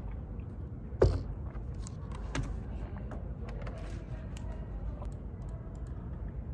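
A single sharp knock about a second in, like a plastic water bottle set down on a desk, followed by scattered light clicks and taps over a steady low room hum.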